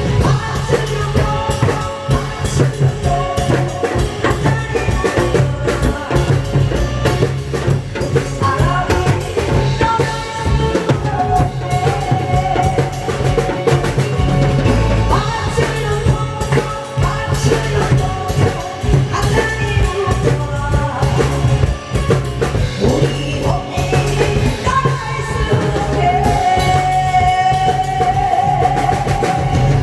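A song sung live over a loud backing track with a steady drum-kit beat, played through a PA system. The melody has long held notes.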